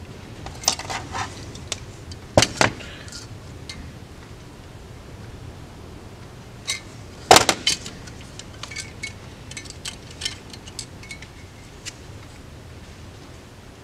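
Small metal clicks and clinks as an Edelbrock 1406 carburetor's top and floats are handled and a float tab is bent with needle-nose pliers. There are a few sharp clicks early on, one loud clack a little past seven seconds in, then a run of light ticks.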